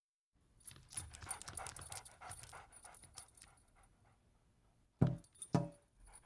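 A dog panting in quick breaths that fade away, followed by two short thumps about half a second apart, louder than the panting.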